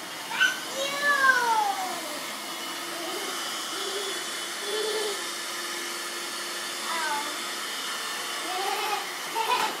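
Dirt Devil vacuum cleaner running steadily, with a few high falling vocal cries over it about a second in and again near the end.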